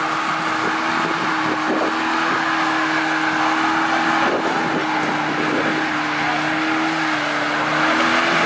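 Opel Astra's engine held at high, steady revs in a stationary burnout, its front tyres spinning on the asphalt; the revs climb slightly near the end.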